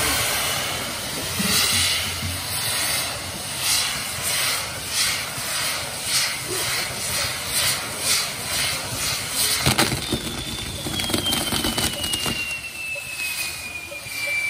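Castillo fireworks tower burning: a hissing, spitting rush of spark fountains that surges in a regular pulse about twice a second, then a sharp bang just before ten seconds in, followed by a long whistle that slowly falls in pitch.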